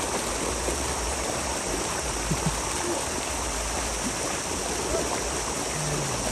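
Steady rush of water gushing from a tubewell outlet pipe into a concrete tank.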